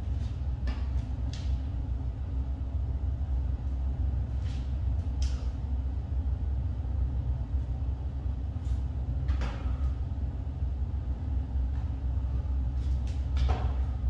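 Steady low background rumble with a few soft, scattered thuds and shuffles as hands and bare feet land on a yoga mat over a wood floor during a sideways crouching hop. The landings are short and irregular, the strongest about four seconds in, about nine seconds in and near the end.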